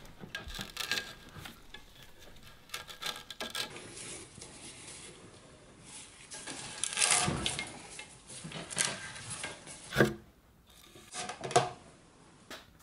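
Scraping and crunching of a hand-turned bung borer's steel bit cutting into wood, followed by handling of the tool as its wooden handle is fitted, with a couple of sharp knocks near the end.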